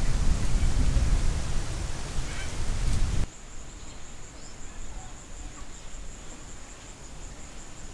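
Outdoor bush ambience: a loud rushing noise with a few faint bird calls. About three seconds in it cuts off abruptly to a quieter scene where an insect keeps up a steady, high, pulsing trill.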